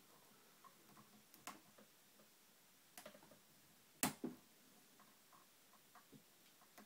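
Faint, scattered clicks of a lock pick and tension wrench working the pins of a TrioVing oval pin-tumbler cylinder held in a false set, with one sharper click about four seconds in.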